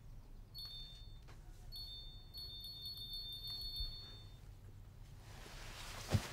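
Phone message notification chimes: several short, bright chimes in quick succession as text messages arrive, the last one ringing on for about two seconds. A single thump near the end.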